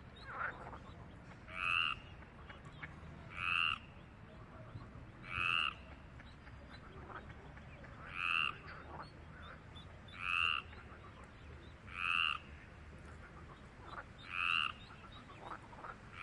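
A frog calling: a short, pulsed croak repeated about every two seconds, around eight calls in all, each lasting about half a second.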